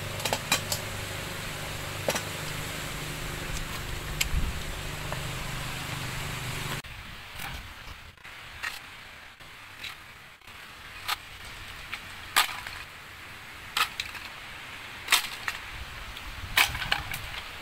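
Dry bamboo sticks and twigs clicking and knocking against each other and the pebbles as they are handled and laid down, in scattered sharp clicks. For the first several seconds a steady low drone runs under a few clacks, then stops suddenly.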